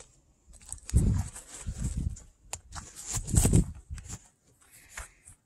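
Handling noise on a handheld camera's microphone: uneven low thumps and scraping rustle, loudest about a second in and again about three and a half seconds in.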